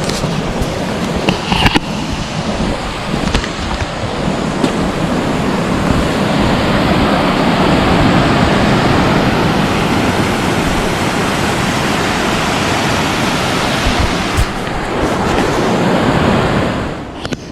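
River in spate after a storm, rushing loudly and steadily, with a few sharp knocks in the first two seconds. The sound falls away sharply near the end.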